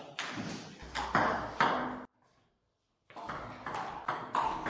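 Table tennis ball clicking off the bats and table in sharp, ringing ticks. The ticks break off for about a second of dead silence a couple of seconds in, then start again.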